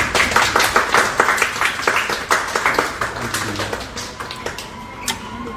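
Hands clapping: a quick run of loud claps that thins out and fades after about three seconds, with a single sharp click about five seconds in.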